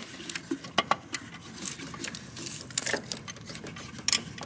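Irregular light metallic clicks and taps of an alternator mounting bolt being handled and threaded in by hand against the alternator bracket.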